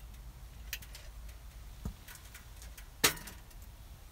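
A small metal kettle being moved and set down on a woodstove top: a few light clinks of its handle about a second in, then one sharp metal clank with a short ring about three seconds in as it lands on the stove.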